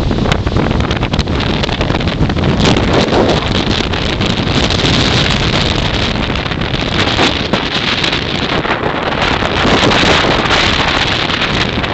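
Strong storm wind buffeting the microphone, a loud, steady rush that swells with gusts about three seconds in, around five seconds, and again near ten seconds.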